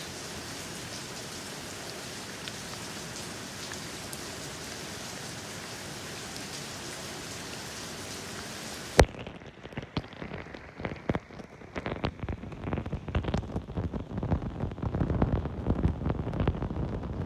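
Steady rain falling, an even hiss. About halfway through it cuts off with a sharp click, and an uneven low rumbling with scattered knocks takes over, growing louder toward the end.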